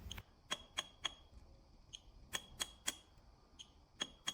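Battery spot welder firing: about ten sharp, faint clicks in groups of two or three, each with a brief high beep. This is the nickel tab being welded to the replacement battery cell, spot after spot.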